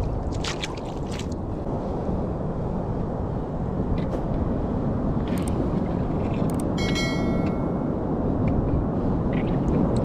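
Steady rumble of ocean surf with wind on the microphone. In the first second or so there are a few splashing footsteps through a shallow tide pool.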